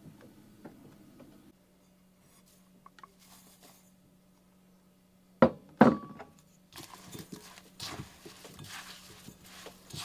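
Two sharp knocks about half a second apart, followed by lighter, irregular clattering.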